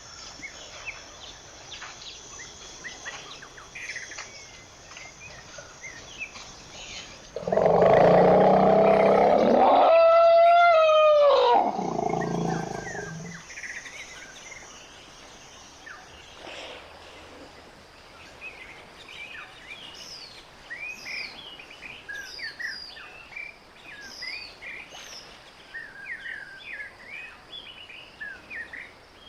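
An elephant trumpets once, a loud call lasting about five seconds: a rough blast that turns into a wavering, pitched note, which falls away at the end. Birds chirp throughout, more busily in the second half.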